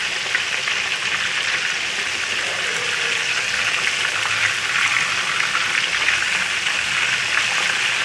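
Beef seekh kababs on wooden skewers deep-frying in hot oil in a wok: a steady sizzling hiss with fine crackles.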